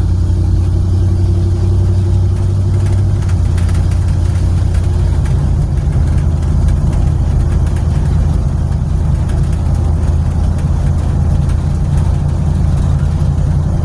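Car engine and road noise inside a stripped cabin of bare metal with no interior trim, a loud, steady low drone as the car pulls out onto the road. A higher engine note in the first few seconds changes about three seconds in.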